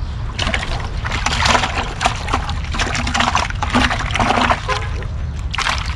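Water splashing and sloshing in a plastic bucket as a hand grabs at live bait fish, in repeated irregular splashes over a steady low rumble.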